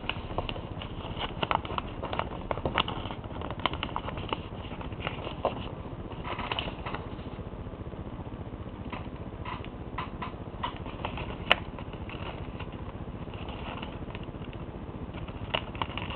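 A sheet of paper being folded and creased by hand: irregular crinkles and soft taps over a steady background hiss, with one sharper click about eleven seconds in.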